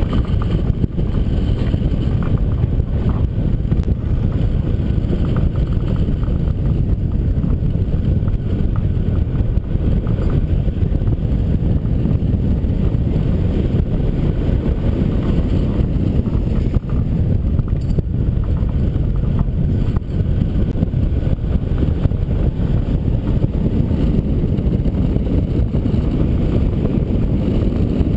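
Airflow over a camera microphone mounted on a hang glider in flight, heard as a loud, steady, low wind noise.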